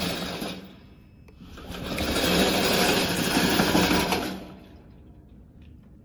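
Remote-control tracked mower's brushless electric drive motors and gearboxes whirring as the machine drives on its tracks with the gasoline engine off. The whir fades out just under a second in, starts again about a second later, and stops about four and a half seconds in.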